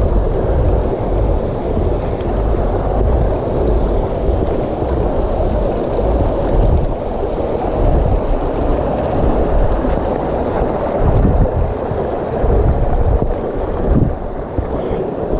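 Wind buffeting a moving body-worn camera's microphone: a loud, steady, wavering rumble with a rushing hiss over it.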